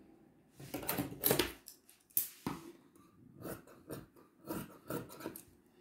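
Fabric scissors cutting through stretch velvet: a long rustle of cloth, then a run of short snipping strokes about three a second.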